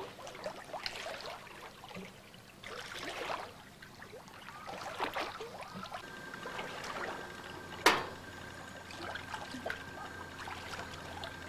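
Swimming-pool water splashing and lapping in irregular washes as a person swims through it with arm strokes. About eight seconds in, a single sharp click stands out as the loudest sound, and a faint steady high tone comes in a little before it.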